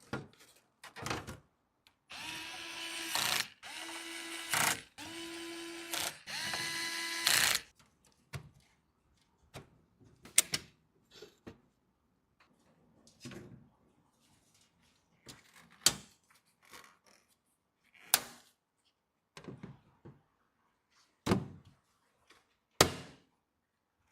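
A small electric screwdriver runs in four bursts of about a second each, a steady motor whine, as it drives screws. Then come scattered sharp clicks and knocks of hardware being handled and fitted.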